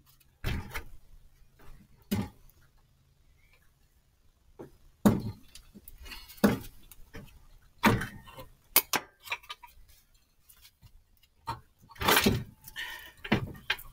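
Hand hammer striking steel on a car's front steering knuckle and ball joint while the ball-joint pinch bolt is knocked out: a series of sharp, irregularly spaced metallic knocks with small clinks between them.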